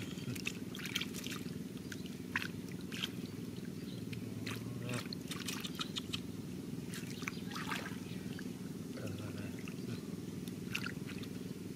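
Small irregular splashes, drips and squelches as hands work a woven bamboo basket in shallow muddy water, over a steady low hum.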